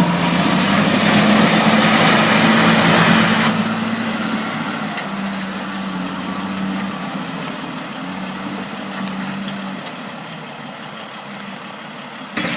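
Caterpillar 950F wheel loader's six-cylinder diesel engine running hard for about three and a half seconds, then easing back to a steadier, quieter run that slowly fades.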